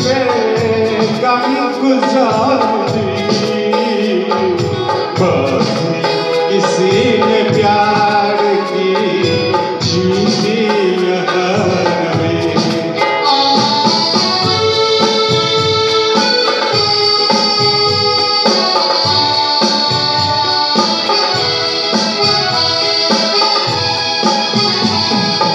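Live band music: a man sings through a microphone over the band for about the first half, then the singing stops and the band carries on with an instrumental passage of held notes.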